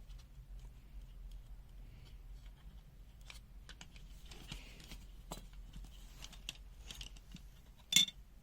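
Scattered faint clicks and rustles of the small plastic and metal parts of a multimeter being handled during disassembly, with one sharper click near the end. A steady low electrical hum runs underneath.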